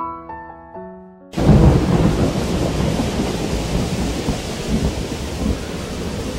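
Soft piano music breaks off about a second in, cut by a sudden crash of thunder with a low rumble, then steady heavy rain.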